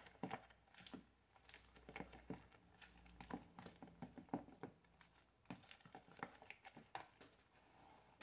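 Faint scraping and clicking of a metal spoon stirring a thick flour-and-cream batter in a plastic bowl.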